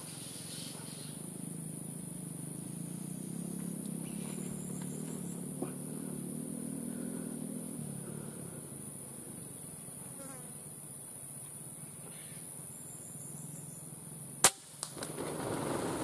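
A steady high-pitched insect drone, broken near the end by a single sharp crack of a PCP air rifle shot. Two faint clicks and a brief rustle follow.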